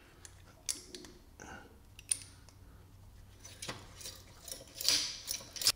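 Stainless safety wire and safety-wire pliers handled while wiring the oil drain plug: a few sharp metallic clicks spread apart, and a louder scraping rustle near the end.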